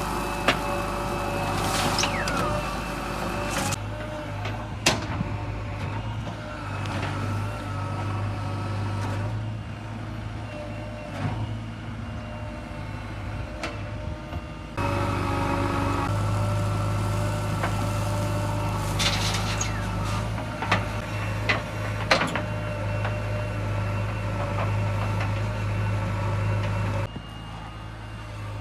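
Heavy JCB machine's engine running steadily, with scattered sharp clanks and knocks. The sound changes abruptly a few times, as if cut between takes.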